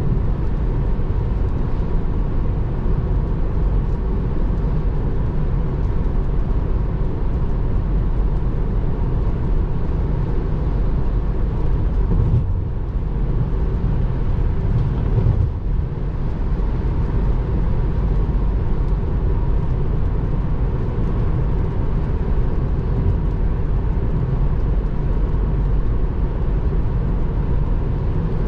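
Steady road and tyre noise inside a Tesla Model 3's cabin at highway speed on a rain-soaked road, with wet tyre spray and rain on the car. As an electric car it gives no engine note. The noise eases briefly about halfway through.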